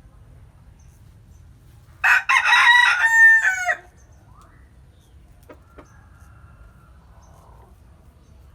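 A bantam rooster crows once, about two seconds in, a loud crow of under two seconds that drops in pitch at the end.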